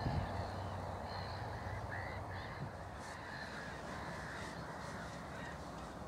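A flock of birds calling, many short arched calls repeating and overlapping, over a steady low rumble.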